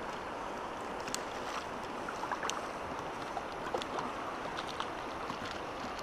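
Steady rushing and rippling of a shallow, fast river's current, with a few scattered light ticks.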